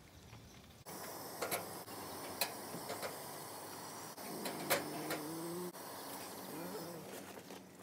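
Portable camp gas stove burner hissing steadily under a wire toaster rack, with several sharp metallic clicks as the rack and toast are handled.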